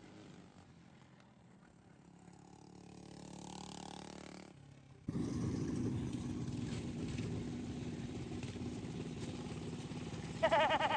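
Racing lawnmower engines running, faint at first, then much louder and steady after an abrupt jump about five seconds in. A brief higher-pitched sound comes near the end.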